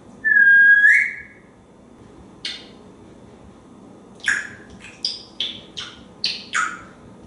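African grey parrot whistling one clear note about a second long that rises at the end, then a lone short chirp, then a quick run of about seven short sharp chirps near the end.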